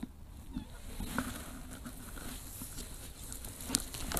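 Handling noises of a landing net holding a freshly netted rainbow trout being lifted onto a wooden jetty: scattered light knocks and clicks over a low rumble, with one sharper click near the end.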